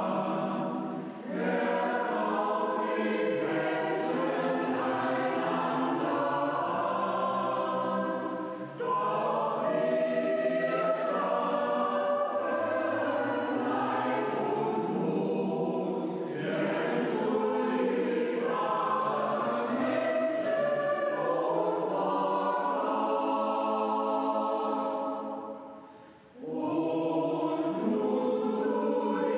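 Mixed choir of men and women singing a cappella, in sustained phrases with brief pauses for breath about a second in and near nine seconds, and a longer break about three-quarters of the way through before the singing resumes.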